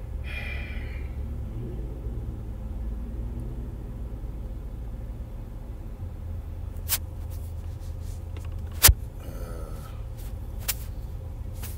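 Low steady rumble inside a car's cabin as it sits running, with a few sharp clicks, the loudest about nine seconds in.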